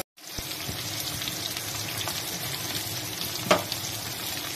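Sliced onions sizzling in hot oil in a kadhai, with a steady hiss and one sharp knock about three and a half seconds in.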